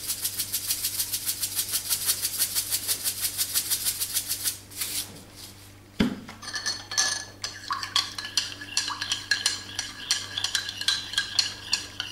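A hand-twisted salt grinder grinding salt: a rapid, even run of clicks for about four and a half seconds. Then a single knock as something is set down, followed by a metal spoon clinking against a ceramic mug as yeast water and salt are stirred.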